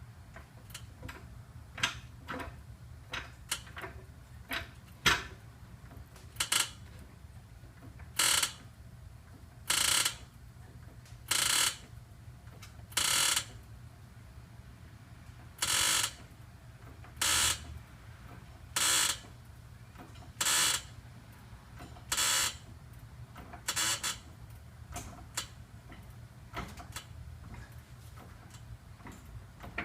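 Worn front lower control arm ball joint on a 2002 Honda S2000 creaking as the car is jacked up: a loud creak with each stroke, about one every second and a half, with lighter clicks before and after. It is typical ball joint noise, from the front passenger side.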